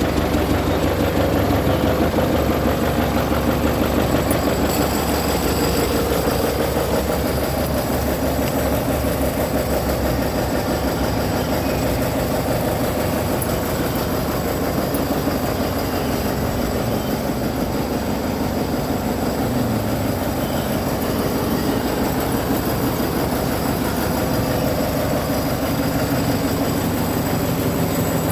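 Forklift engine running steadily at idle, with a fast, even pulse.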